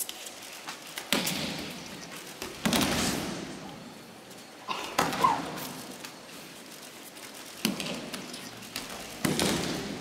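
Aikido breakfalls: bodies slapping and thudding onto the tatami mats, about five times, each hit followed by a long echo in a large hall.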